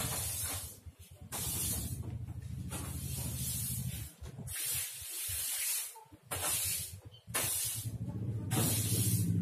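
Broom sweeping a floor: a series of short, hissy swishes, about one a second.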